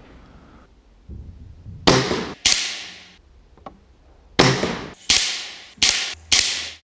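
Weihrauch HW77 K underlever spring-piston air rifle firing without a moderator: a run of about six sharp reports over four or five seconds, each cracking out and dying away quickly.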